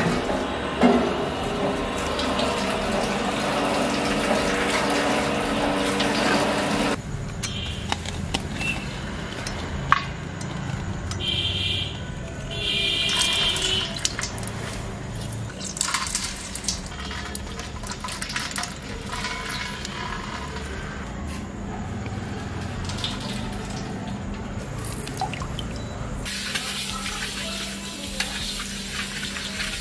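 Lemon halves being pressed in a hand-held metal squeezer, the juice splashing and dripping into a large steel pot. Near the end, a hand rubbing and scrubbing the inside of an iron kadai.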